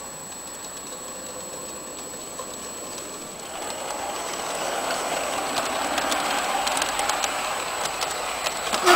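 LGB garden-scale model train, a small electric locomotive hauling coaches, running past on outdoor track. It grows louder about three and a half seconds in as it nears, with a running rattle and quick clicks of the wheels over the rail joints, and a louder clack right at the end.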